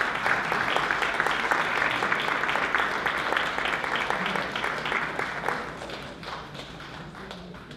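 Audience applauding, a dense patter of many hands clapping that fades away over the last two seconds or so.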